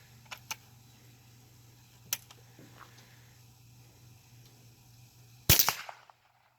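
A single .22 Long rimfire shot from a Springfield 120A rifle: one sharp crack about five and a half seconds in that rings off briefly, after a few faint clicks.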